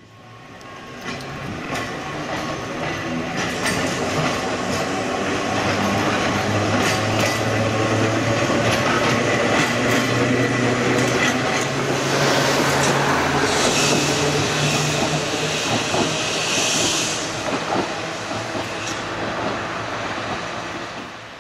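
Manx Electric Railway tram, power car 32 hauling trailer 57, running past close by. Its electric motors hum at a steady low pitch and its wheels click over the rail joints. A few seconds of hiss come past the middle, and the sound eases as the tram draws away near the end.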